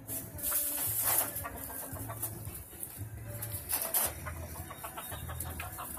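Chickens clucking, with brief rustles of feathers as a gamecock is handled, about half a second in and again near four seconds.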